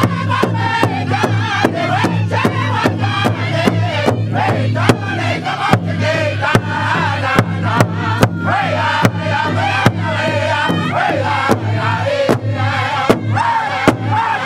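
Powwow drum group singing in high, wavering unison voices over a large shared powwow drum struck together with drumsticks in a steady beat, about two to three strokes a second.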